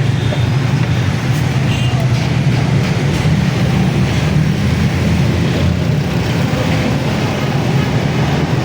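A loud, steady low mechanical rumble from a running machine or engine, with no breaks.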